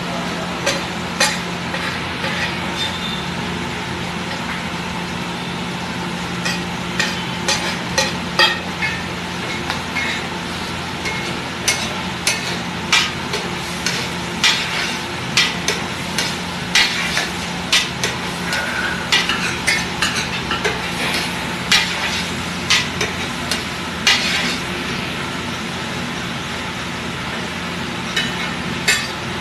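Butter and chopped green vegetables sizzling on a large flat iron griddle (tawa), with a metal spatula scraping and clacking against the griddle in quick irregular strokes. The strokes are thickest through the middle stretch.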